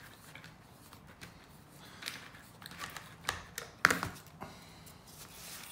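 Light clicks and taps of hand work on a plastic angle grinder housing with a flat-blade screwdriver, with a sharper knock about four seconds in.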